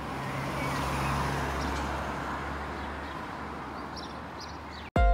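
Street traffic noise: a car's tyre and engine sound swelling over the first second and slowly fading, with a low hum underneath. It cuts off suddenly near the end as music starts.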